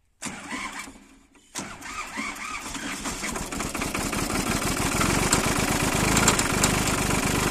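Solis tractor diesel engine cranked and started: a brief first burst that dies away, then a second start about a second and a half in that catches and runs, growing louder with a steady sharp knock. The knock is the sign of a broken connecting-rod bearing, as the mechanic diagnoses it.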